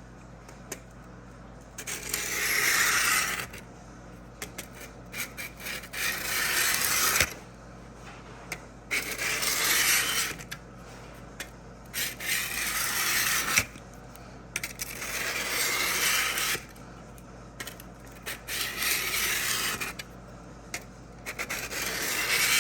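Steel drawknife blade rubbed back and forth across a diamond sharpening block: about seven scraping strokes, each a second or two long, with short pauses and light clicks between them. The back of the blade is being worked flat.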